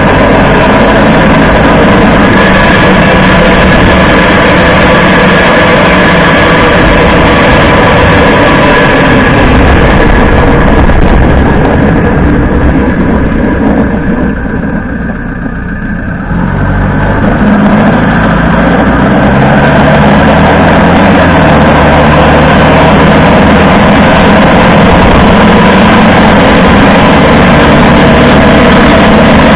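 Toyota HiAce 200-series van driving, with loud tyre road noise and drivetrain noise, briefly quieter about halfway through. The uploader hears a rattle ("karakara") from the differential under the road noise and traces it there, the hub bearings having already been replaced.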